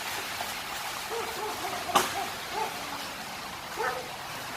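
Steady rush of storm wind and rain, with a dog giving a few short yelps and a single sharp click about two seconds in.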